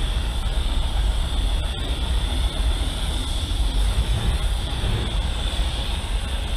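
Compressed-air paint spray gun hissing steadily as it sprays paint onto a scooter body panel, over a steady low rumble.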